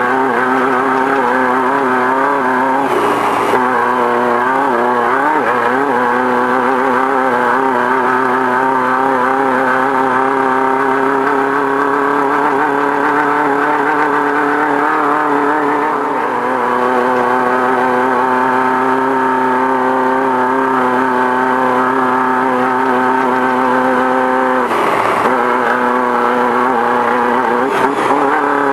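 Beetle-based desert race car's engine running hard at high revs throughout, heard from inside the car. Its pitch wavers a few seconds in, dips briefly about halfway, and drops twice for a moment near the end as the throttle comes off.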